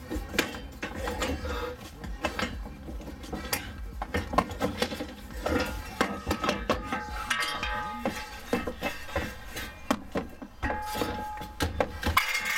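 Stamped-steel car floor brace bar knocking and scraping against the body and trim as it is worked out of the floor: a run of irregular metallic clanks and rattles.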